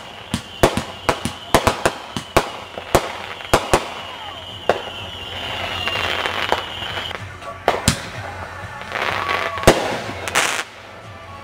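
Consumer aerial fireworks going off: a rapid run of sharp pops and crackles through the first few seconds, over a steady high whistle that sinks slightly in pitch and stops about seven seconds in. Then come a few single loud reports and a stretch of hissing near the end.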